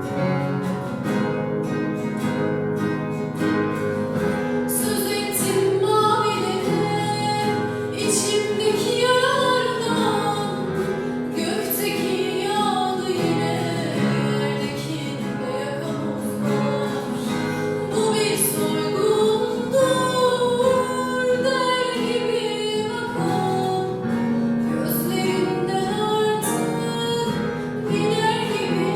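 A female voice singing a song to acoustic guitar accompaniment.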